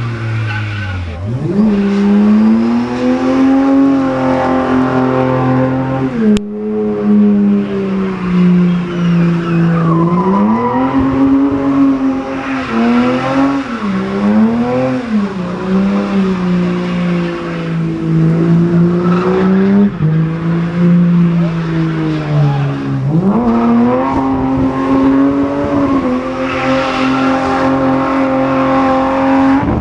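BMW E30 325i's straight-six held at high revs in a burnout, its note rising and falling repeatedly as the throttle is worked, over the noise of spinning rear tyres. One sharp click about six seconds in.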